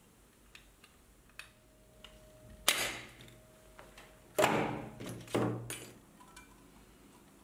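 Thin 0.4 mm brass sheet being bent and pressed by hand: a few light clicks, then three loud crinkling bends of the metal, each about half a second long, the second the loudest.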